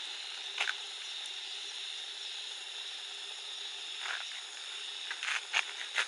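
Steady high hiss of outdoor ambience, with a few short clicks and knocks from a handheld camera being moved, one about half a second in and several near the end.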